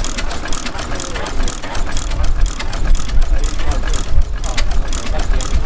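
Vintage open-flywheel stationary engine running steadily: a rapid, even clatter over a low rumble.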